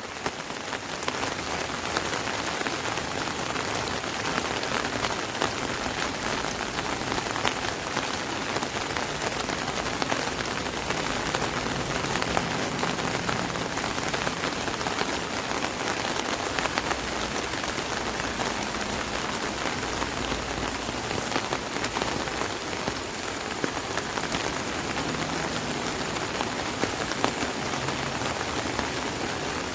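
Steady rain falling on an umbrella, with many separate drops striking the canopy.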